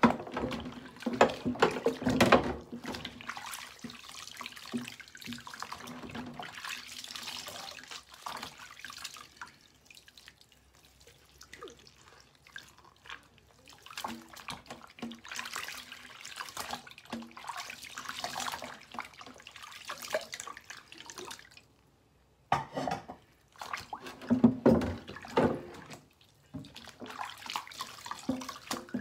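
Dishes being washed by hand in a stainless steel sink: water splashing and dripping as a mug and a plate are rinsed and scrubbed with a dishcloth, with scattered knocks and clinks of dishware, louder for a few seconds near the end.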